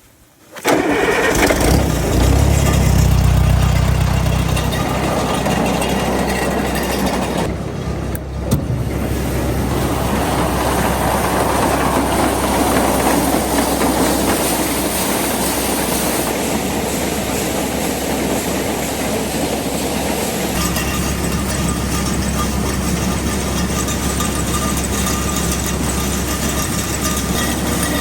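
Old GMC farm truck's engine starting and then running steadily, really loud inside the cab. It dips briefly about eight seconds in and settles into a slightly lower, deeper note later on.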